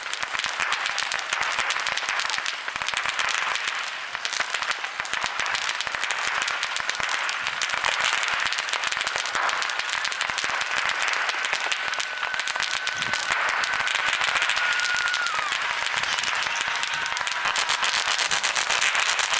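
Fireworks crackling densely and without pause, a rapid crackle like applause, with no deep booms. About halfway through, a high whistle holds steady for several seconds, drops to a lower pitch and then fades.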